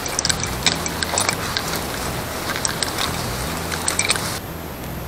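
Footsteps on stony, gravelly ground, with stones clicking and crunching underfoot at irregular intervals over a low rumble. About four seconds in, the hiss cuts off abruptly and the sound turns duller.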